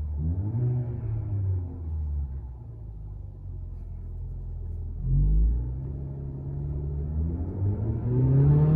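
Haval H6 GT's turbocharged four-cylinder engine and exhaust in Race mode, running with a deep rumble. It revs up and falls back near the start, then pulls with a steadily climbing pitch through the second half.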